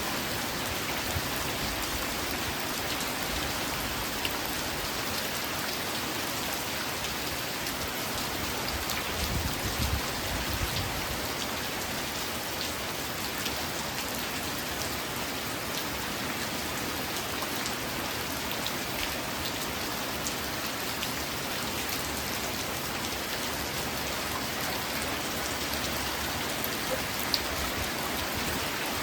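Steady rain falling: an even hiss scattered with the ticks of single drops. A brief low rumble comes about nine to eleven seconds in, and one sharper drop tick near the end.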